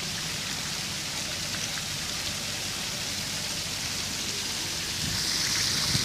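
Water from a row of fountain jets spraying up and splashing down into the basin: a steady hiss of falling water that grows louder about five seconds in.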